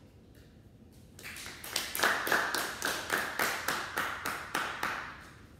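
A small group clapping, starting about a second in and fading out after about four seconds, with a few sharp claps standing out at about three a second.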